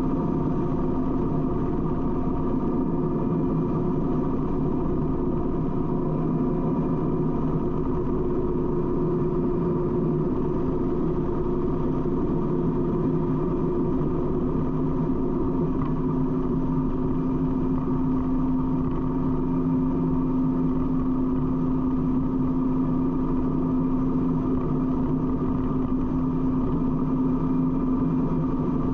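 Harley-Davidson touring motorcycle's V-twin engine running steadily at highway cruising speed, a constant drone under the rush of wind and road noise, with no change in revs.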